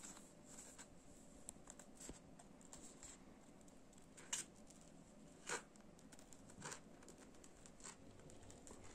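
Large scissors snipping through paper, faint, with a few louder snips about a second apart in the second half.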